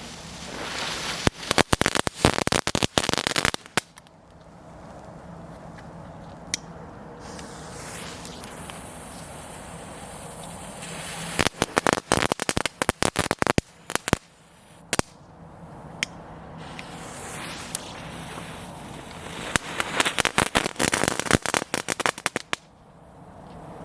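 Weco Creepy Crackles, a youth-category crackling firework, going off in three bursts of rapid crackling, each a few seconds long. A short hiss leads into each burst, and a few single pops sound between them.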